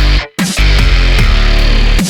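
Loud background music in a heavy rock style, with distorted guitar and heavy bass; it drops out briefly about a quarter second in, and a downward pitch slide comes near the end.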